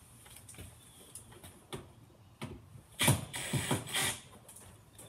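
Hand-tool and wire handling at a breaker panel: scattered light clicks, then a short cluster of louder mechanical rattling and clacking about three to four seconds in.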